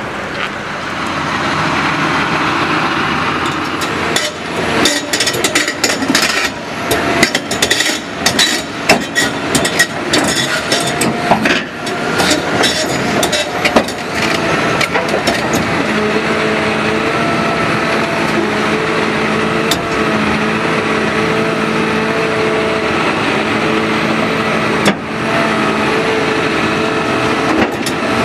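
Heavy machinery: a stretch of irregular metallic clanks and knocks, then a heavy diesel engine running steadily with a high whine.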